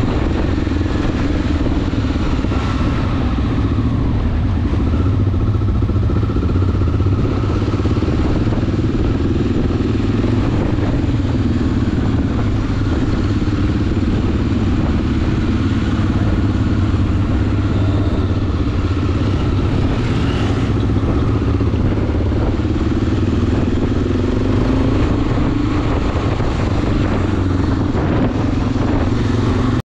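Enduro motorcycle engine running steadily while riding off-road, its pitch drifting gently up and down with the throttle.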